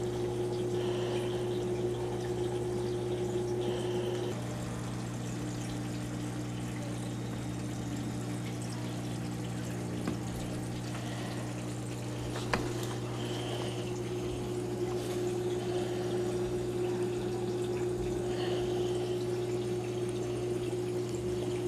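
Small submersible aquarium powerhead running with a steady electric hum, and water flowing and trickling as it pumps water into the tank.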